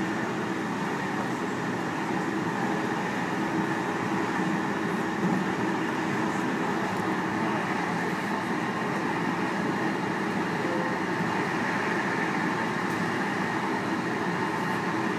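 JR Hokkaido 735 series electric train running along the line, heard from inside the car: a steady, even running noise.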